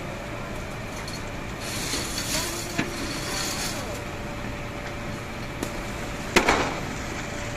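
Large fire burning through wooden furniture shops, with a steady rushing noise. A spell of hiss begins about two seconds in, and one sharp crack comes about six and a half seconds in.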